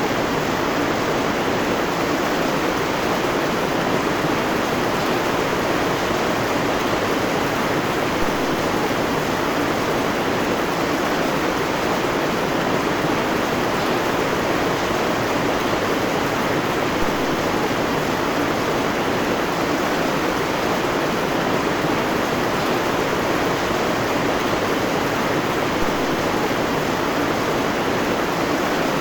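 Heavy rain pouring steadily onto dense forest foliage: a loud, even hiss.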